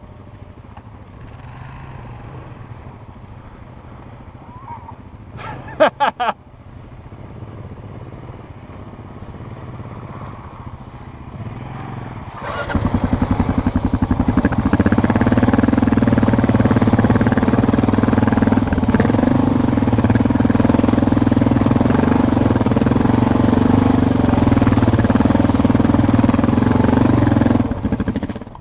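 Dual-sport motorcycle engines running: a low, quieter hum at first, then from about halfway a much louder, steady engine sound as a bike rides close by. A brief loud sound comes about six seconds in.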